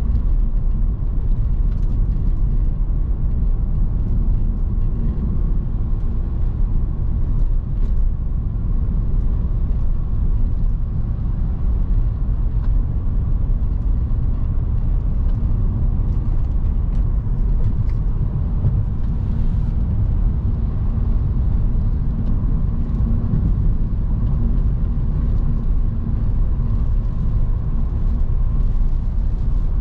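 Steady in-cabin drone of a 2009 Audi S5's 4.2-litre V8 and its tyres on a wet road while cruising at an even speed. It is a low, unbroken rumble with no gear changes or revs.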